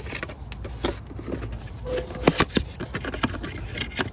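Replacement igniters and their packaging being sorted through in a parts drawer: a run of small clicks, knocks and rattles, busiest about two seconds in.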